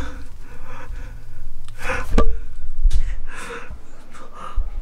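A person gasping and breathing hard in short breaths, roughly one a second, over a low rumble of handling noise on the microphone.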